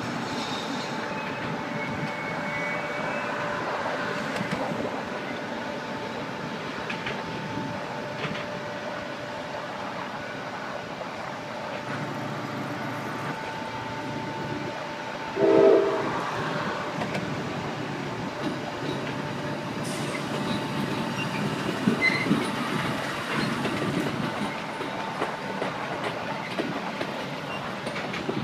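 Amtrak passenger train with a diesel locomotive rolling through a rail yard, its engine and wheels running steadily on the rails. A short horn blast sounds about halfway through.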